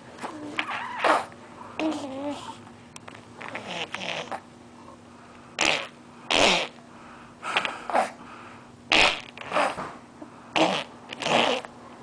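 A four-month-old baby blowing raspberries: repeated short, wet sputtering bursts through the lips, coming faster in the second half, with a few soft coos between them.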